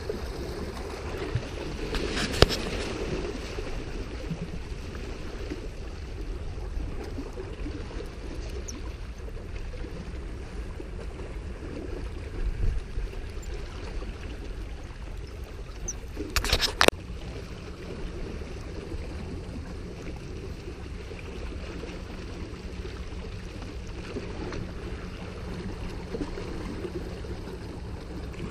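Small waves lapping and gurgling against jetty rocks, with low wind rumble on the microphone. A sharp knock stands out about two seconds in, and a short cluster of louder clatter comes around sixteen to seventeen seconds in.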